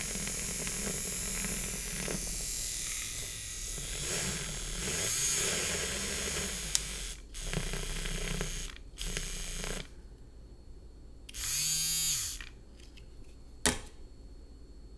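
Electric milk frother's small motor whirring as it froths milk. It cuts out and restarts twice in short bursts, then stops. Near the end it gives one brief spin up and down, followed by a click.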